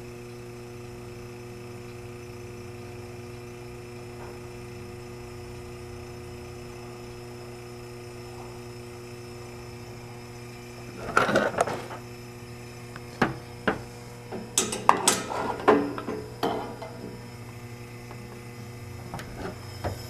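GE Monitor Top DR-1 refrigerator compressor running steadily, a hum with several steady tones, pumping a nitrogen charge of about 60 PSI through the unit with the float valve forced open. About halfway through, a flurry of sharp clinks and knocks sounds over the hum for several seconds.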